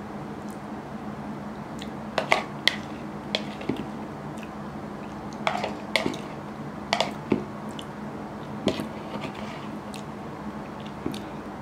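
Metal spoon clinking and scraping against a bowl as curry rice is scooped up, about ten sharp clicks spread irregularly, with soft chewing between them. A steady low hum sits underneath.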